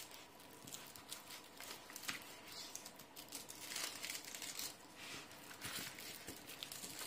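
Faint crinkling and rustling of a diamond painting canvas and its clear plastic film as hands press and smooth it flat.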